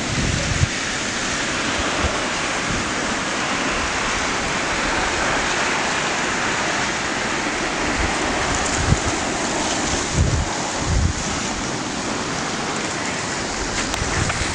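Drift ice floes on a river grinding and rubbing against one another as they float downstream, a steady hissing rustle. A few short low thumps come through it, about halfway through and again later.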